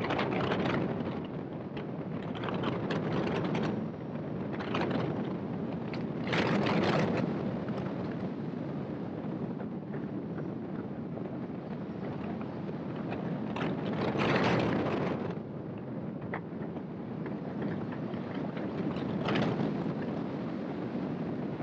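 Airflow rushing over a hang glider's wing-mounted camera microphone in flight, swelling in gusts every few seconds, the strongest about seven and fourteen seconds in.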